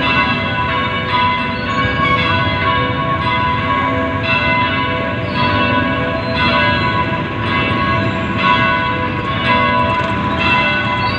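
Church bells ringing, a new stroke about once a second over the overlapping hum of the ones before.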